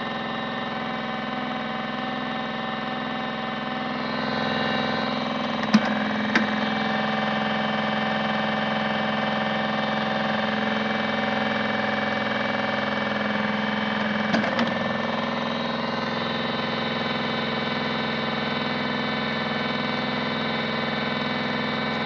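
Small electric motor of a modified Miele W1 toy washing machine running steadily with a hum, turning the water-filled drum. Two sharp plastic clicks come about six seconds in and two more around fourteen seconds, from the detergent drawer being pulled out and pushed back.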